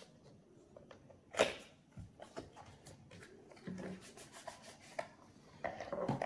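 Cardboard packaging rubbing and sliding as an outer sleeve is worked off a small product box. There is one sharp scrape about a second and a half in, then scattered soft taps and rustles, busier near the end as the inner box is set down.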